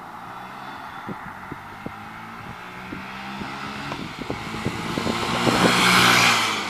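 A 2012 Honda CBF125's single-cylinder four-stroke engine approaching at a steady note and passing close by. It grows louder to a peak about six seconds in, then starts to fade.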